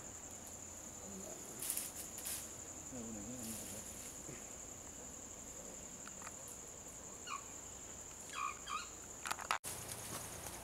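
Steady high-pitched insect drone in forest, unbroken until a brief dropout near the end. A few short chirps and clicks sound over it in the last few seconds.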